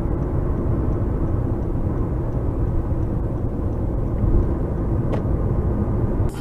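Steady road and engine rumble of a car driving, as picked up by a dash camera.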